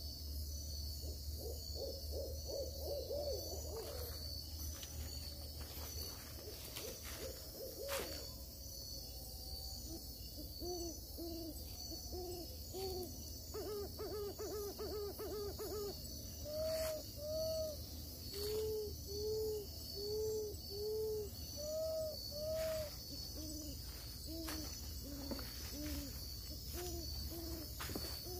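Owl hoots: short, rounded hoots repeated in runs at about one a second, at two different pitches, over a steady high-pitched chorus of night insects. Scattered snaps and rustles of brush.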